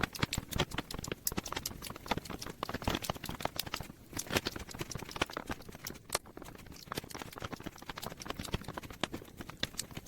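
Plastic keycaps of an IBM Model M keyboard being pressed onto their key stems one after another: a run of small irregular clicks and taps, several a second.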